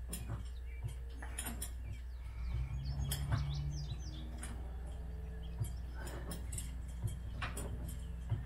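Hydraulic floor jack being pumped by its long handle: scattered clicks and creaks from the handle and pump, with a few short high squeaks about three seconds in.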